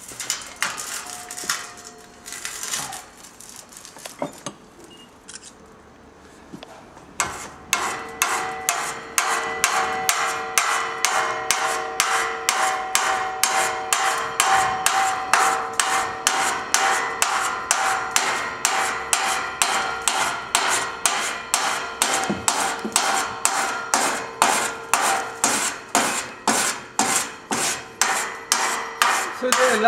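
Hand file worked in quick, even strokes across the joint of a steel band saw blade, about two strokes a second, starting about seven seconds in, the blade ringing with each stroke. This is the finishing stage: filing the still-swollen joint down level with the rest of the blade.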